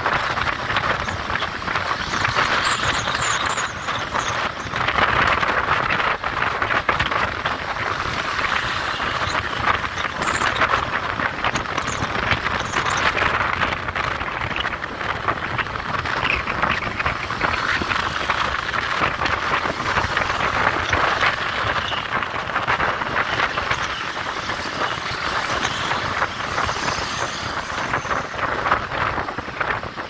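Steady rush of wind and road noise heard from a moving motorcycle, mixed with the running engines of nearby motorbikes.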